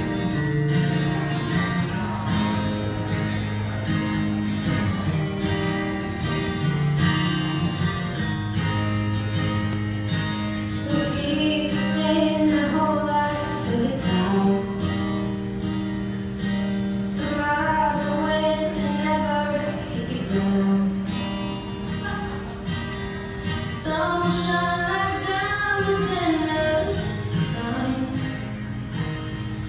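A song with acoustic guitar accompaniment; after an instrumental opening, singing comes in about a third of the way through.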